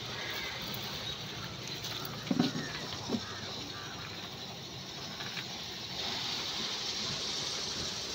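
Fish market background noise: a steady hiss of activity, broken by a short cluster of knocks a little over two seconds in and one more knock about a second later.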